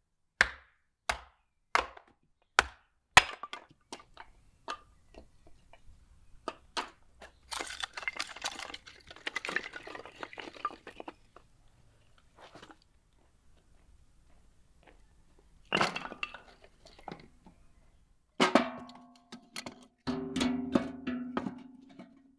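Split firewood being handled: a quick run of sharp wooden knocks, then the rattle and clatter of split pieces being stacked, and near the end pieces of wood dropped into a steel stove drum, clanking with a brief metallic ring.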